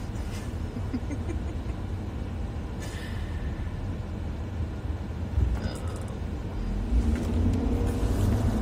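Low engine and road rumble heard inside a moving vehicle's cabin. It swells louder over the last few seconds as a faint engine note comes in, as if the vehicle is pulling away or speeding up.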